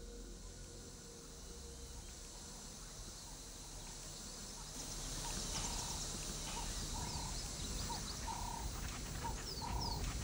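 Faint outdoor ambience with birds calling. About halfway through, short low calls start repeating roughly once a second over high chirps and quick falling whistles.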